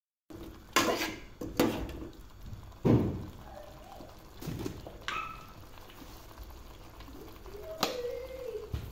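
Metal ladle knocking against the sides of a stainless steel pot while stirring fish pieces in a thick spice paste: several sharp clunks in the first three seconds, a few more spread through the rest.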